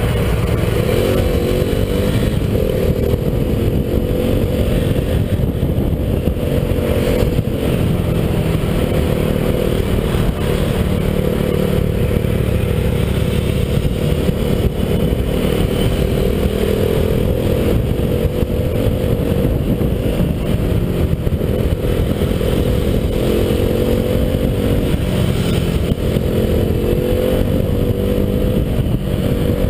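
KTM RC 390's single-cylinder engine running at low speed, its pitch rising and falling a little as the throttle eases on and off, under steady wind rush on the microphone.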